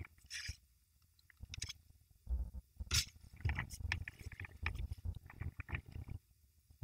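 Faint, irregular crackling and clicking, bunched together from about two seconds in to near the end: small handling noises off camera.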